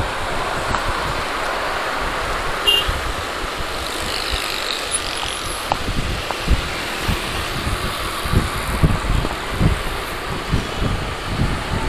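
Riding noise from a Yamaha YBR 125 motorcycle on the move: wind rushing over the action camera's microphone, with the engine and surrounding traffic underneath. From about six seconds in, heavy irregular low thumps of wind buffeting.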